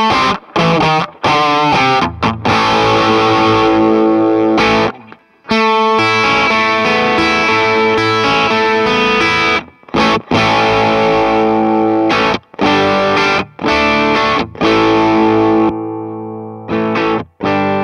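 Fano PX6 electric guitar played through a 65 Amps Colour Boost germanium treble booster into a Tone King Imperial tube amp, with a driven, distorted tone. The chords are cut off abruptly every second or so, with a longer break about five seconds in and a softer chord left ringing and fading near the end.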